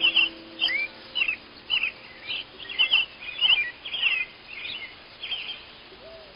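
Songbird singing: a rapid string of short chirps and slurred whistles that thins out near the end.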